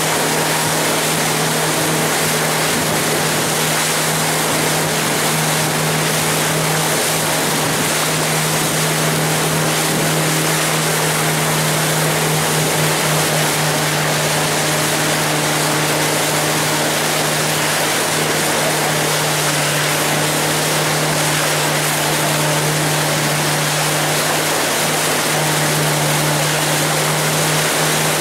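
Tour boat's engine running steadily with a low drone, over the rush of water along the hull.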